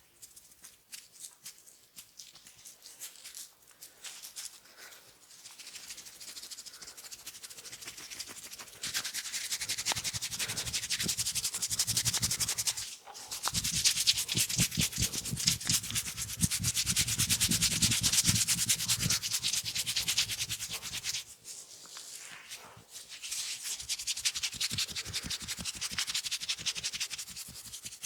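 Oiled hands rubbing and massaging skin close to the microphone: a dense, crackly rubbing that is soft at first and grows louder about a third of the way in, with two short breaks.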